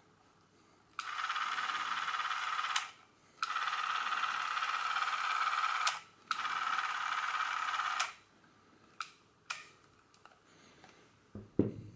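Revue Super 8-Pocket Sport camera's film-drive motor and shutter running in three separate bursts of about two seconds each, a steady whir at its single 18 fps speed, on a test run of the camera. A couple of sharp clicks follow, then a loud handling thump near the end.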